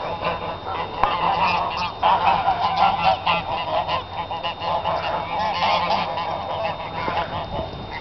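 A flock of waterfowl on a pond calling continuously, with many loud calls overlapping.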